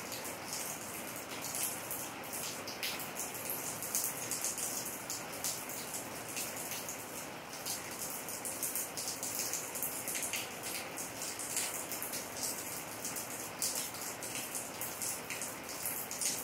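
Heavy rain falling steadily: an even hiss with frequent sharp ticks of drops landing close by.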